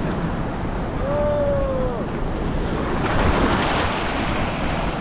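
Shallow seawater rushing over a rocky tidal shelf, with heavy wind buffeting the microphone. A wave surges and splashes, loudest about three seconds in. A short, slightly falling tone sounds about a second in.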